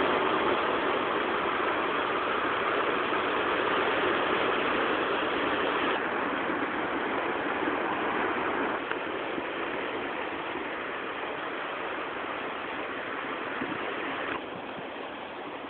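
Sea surf washing over a rocky shore: a steady rushing noise that drops abruptly in level about six, nine and fourteen seconds in.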